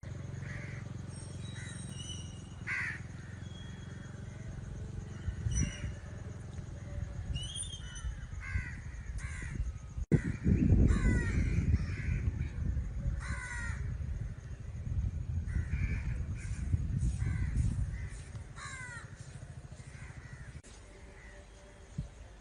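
Crows cawing again and again, short harsh calls, some overlapping. A low rumbling noise sits beneath them and grows louder from about ten seconds in.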